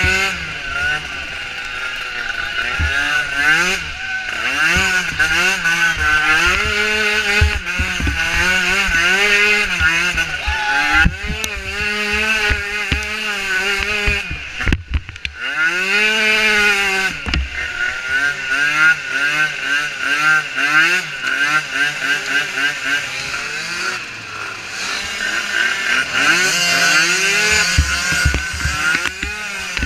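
Micro ATV's small engine racing, revving up and falling back over and over as the throttle is worked. About halfway through, the engine briefly cuts off throttle and then climbs in pitch again.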